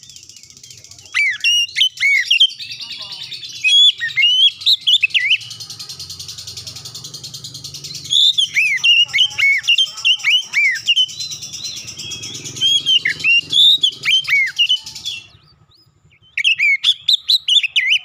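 Oriental magpie-robin singing clear, loud runs of quick whistled notes that sweep up and down, with a break of about a second near the end before it starts again. A steady high hiss sits under the song until that break.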